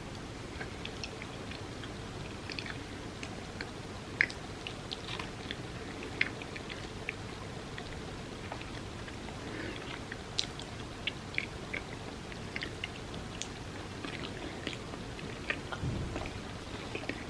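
A person chewing soft food close to the microphone, with many short wet clicks and smacks over a steady hiss, and a dull thump near the end.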